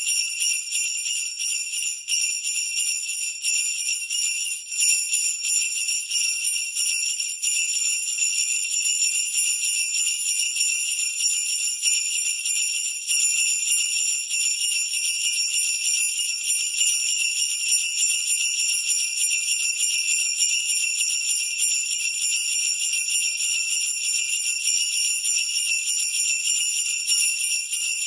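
Sleigh bells shaken continuously: a steady, dense, high-pitched jingle with no pauses.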